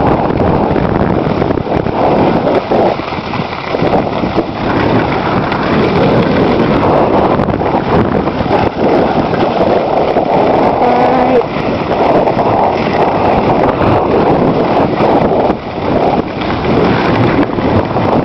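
Wind buffeting the camera microphone as a skier moves down a slope: a loud, steady rushing noise with small dips, with a brief faint pitched sound about eleven seconds in.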